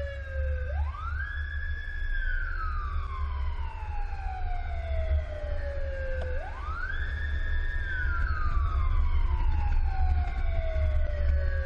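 Fire engine siren in wail mode: it rises quickly, holds briefly at the top and then falls slowly for several seconds, twice. Underneath is a steady low rumble of the moving truck and wind.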